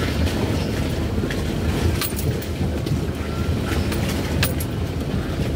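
Vehicle engine and road rumble heard from inside the cab while driving slowly over a rutted, muddy dirt track, with several short sharp knocks along the way.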